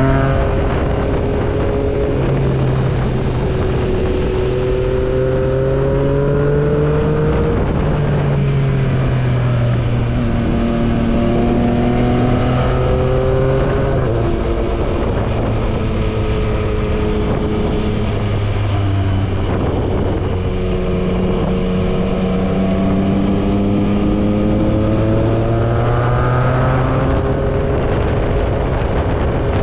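Yamaha MT-09's inline three-cylinder engine heard from the rider's seat while riding. The engine note climbs under throttle and drops back several times as the rider shifts gear and eases off for bends, over a steady rush of noise.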